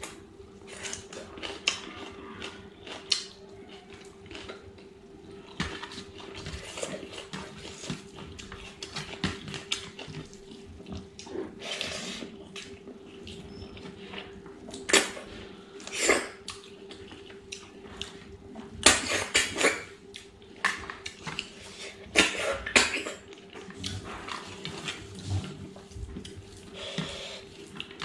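Close-miked hand-eating sounds: fingers mixing rice and snail curry on a steel plate, with irregular clinks of snail shells against the metal and wet mouth sounds of chewing. A few louder clinks come in the second half, over a steady faint hum.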